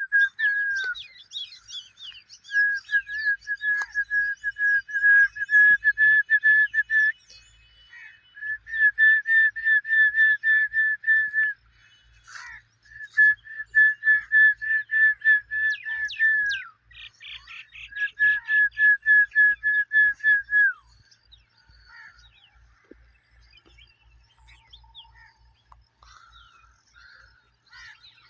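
A high whistled note repeated rapidly, about four or five times a second, in runs of three to four seconds with short breaks between them. Several runs end in a falling slide. For the last several seconds only faint scattered chirps remain.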